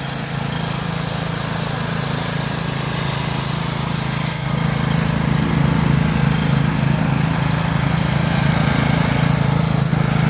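Cub Cadet CC30H rear-engine riding mower running steadily with a continuous engine drone as it drives over the lawn bagging leaves. The sound dips briefly about four seconds in and then carries on a little louder.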